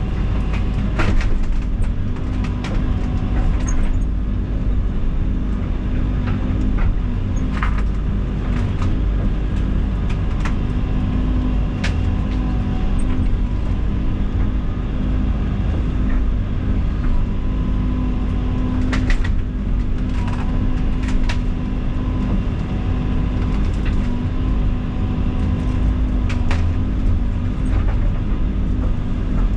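Diesel engine of heavy land-clearing equipment running steadily under work, with sharp cracks and knocks scattered throughout.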